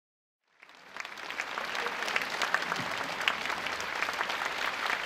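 Audience applauding, fading in just over half a second in.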